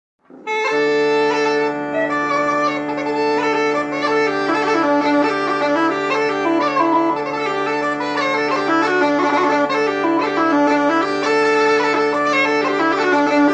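Background music: a melody over a steady drone, starting about half a second in.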